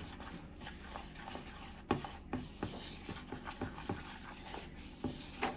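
Wooden spoon stirring and scraping a stiff, crumbly mix of powdered sugar, cocoa, peanut butter and canned milk in a plastic bowl, with a few light knocks of the spoon against the bowl.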